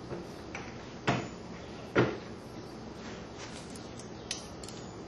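Two sharp knocks about a second apart, with a few lighter clicks near the end, from a reloading press and hand tools being worked while the bullet seating depth is set.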